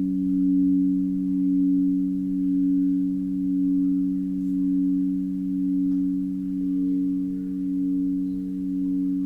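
Singing bowls sounding a sustained drone of two low tones whose loudness swells and fades about once a second. A higher tone joins about two-thirds of the way through.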